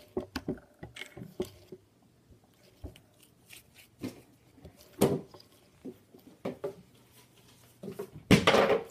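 Hands working slime close to the microphone: irregular small clicks and squelches, with a short, louder rush of noise near the end.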